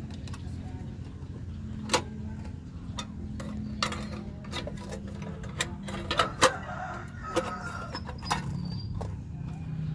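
Small metal mini kerosene wick stove being handled: a scatter of sharp clicks, taps and clinks as fingers turn it and touch its steel burner and top ring, over a steady low hum.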